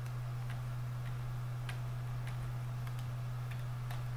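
Steady low electrical hum with a handful of light, sharp clicks scattered about a second apart from someone working a computer.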